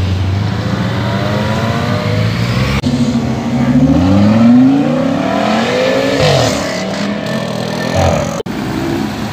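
A Lotus Elise passes at low revs with a steady engine drone. Then an Audi RS6 Avant accelerates hard away, its engine pitch climbing again and again as it shifts up; this acceleration is the loudest part.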